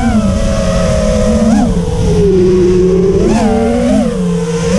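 FPV racing quadcopter's brushless motors spinning HQprop Ethix P3.5 propellers: a loud, steady whine that swoops up in pitch briefly three times as the throttle is punched, with a lower stretch in the middle. Recorded on the drone itself, with wind rush on the microphone.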